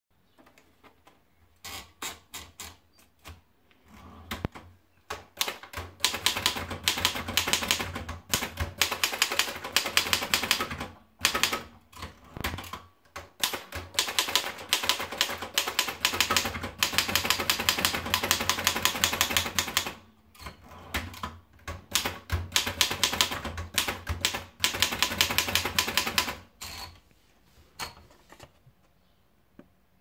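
Erika Model 11 portable typewriter: a few scattered clicks as the paper is rolled in, then fast typing in long runs of sharp keystroke clacks with short pauses between lines, ending with a few scattered clicks.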